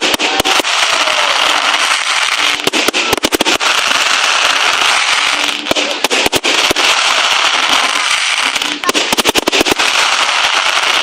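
Fireworks going off in a dense barrage: a continuous crackling hiss broken by rapid clusters of sharp bangs.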